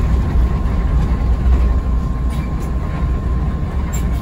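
Cabin noise of an intercity bus under way: a steady deep engine and road rumble, with a thin steady whine above it and a few light clicks.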